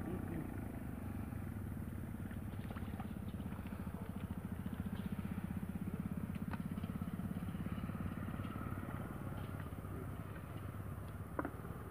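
An engine running steadily in the background, a low pulsing drone that grows a little louder in the middle. A sharp click sounds near the end.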